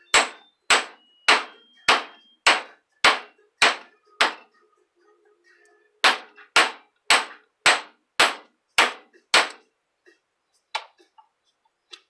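Ball-peen hammer striking the steel of a microwave oven transformer in steady blows, a little under two a second, each with a short metallic ring. Eight blows, a pause of about two seconds, then seven more, and one lighter knock near the end.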